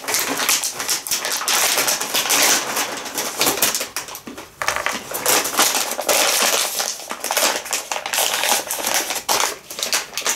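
Brown kraft paper bag crinkling and rustling loudly as it is handled and rummaged in, with a short lull about four and a half seconds in.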